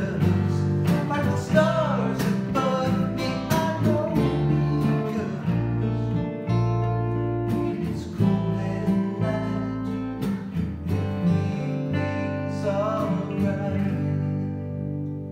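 Two acoustic guitars and an electric bass guitar playing a soft rock song while a man sings, fading out as the last chord rings near the end.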